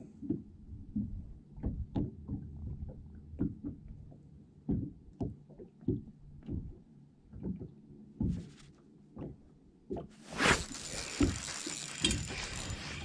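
Small waves slapping against a boat hull in irregular low knocks. About ten seconds in, a loud rushing hiss of wind on the microphone takes over.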